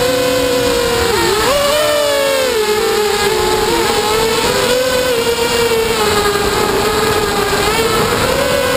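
QAV250 racing quadcopter's brushless motors and propellers whining, heard close from the camera on the drone itself. The pitch dips and swoops with the throttle in the first few seconds, then holds fairly steady. Wind noise rushes over the microphone.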